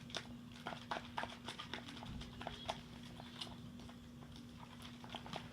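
Slime being mixed: irregular wet clicks and squelches, several a second, over a steady low hum.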